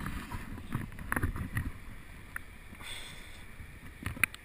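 Water sloshing and lapping around a GoPro held half-submerged at a river's surface, in irregular small splashes and clicks.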